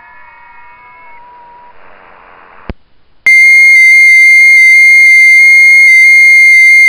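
WSJT-X FT8 audio: several faint steady tones from received FT8 signals shift in pitch over receiver hiss, then a click about 2.7 s in, and just after three seconds a very loud, high-pitched single FT8 transmit tone starts, stepping slightly in pitch as the station begins transmitting.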